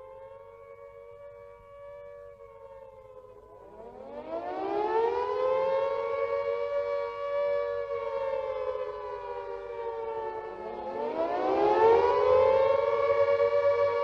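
Outdoor civil-defence warning siren. Over the first few seconds a faint siren holds a steady wail that sinks slightly in pitch. About four seconds in, a louder siren winds up to a steady wail at two close pitches sounding together, dips, and winds up again about eleven seconds in.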